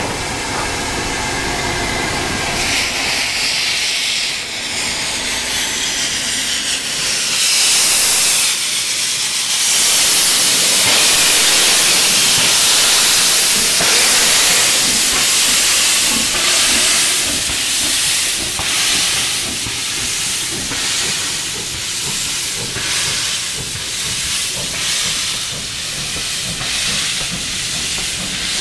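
Steam locomotive setting off with its cylinder drain cocks open, giving a loud, steady hiss of escaping steam. Even beats follow, about one a second, as the train gets under way and its coaches roll past.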